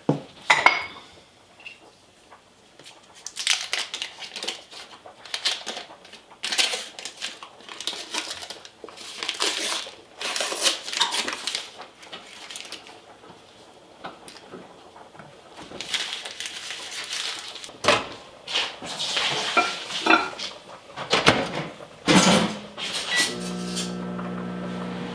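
A measuring spoon and ingredients scraping and clinking in a glass mixing bowl, in a string of short, irregular sounds. Near the end a microwave oven starts running with a steady hum.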